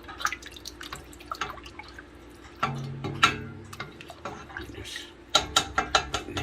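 Scattered light clicks and drips of a utensil working in a pot of stock, lifting out meat, with a quick run of clicks near the end.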